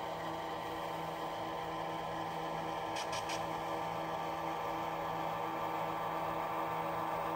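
Diesel locomotive engine sound from the Tsunami 2 decoder and small speaker in an HO-scale Atlas SD35, running steadily and growing slightly louder as the model accelerates. Three faint ticks come about three seconds in.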